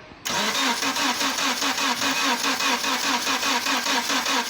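Starter cranking the 2010 Subaru Liberty's boxer engine at a steady, even rhythm, starting about a quarter second in, without the engine catching: the intermittent crank-but-no-start fault, cranked while checking for spark and injector pulse.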